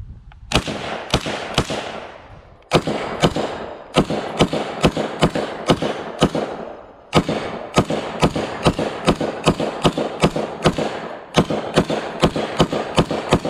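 FN M249S, the semi-automatic belt-fed version of the M249 in 5.56×45mm, fired in quick strings of single shots, about two to three a second, with short pauses between four strings. Each shot echoes.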